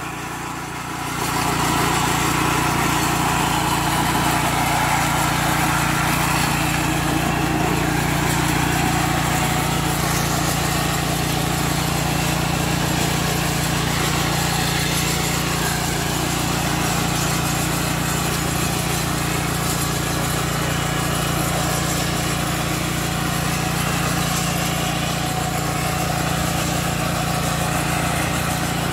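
Engine of a Kawasaki VMTB70 flail mower running steadily, growing louder about a second and a half in, then holding an even pitch.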